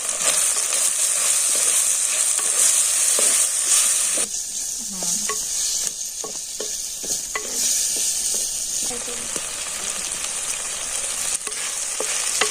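Diced carrots, peas and potatoes sizzling in hot oil and spices in a pan, a steady frying hiss, while a spoon stirs them with short scrapes and clicks against the pan.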